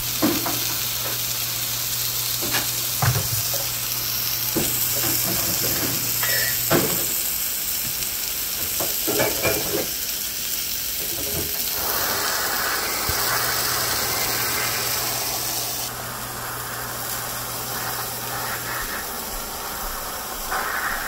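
Propane torch with a handheld broiler attachment burning with a steady hiss, its high-pitched hiss dropping somewhat about three-quarters of the way through, with a few light knocks.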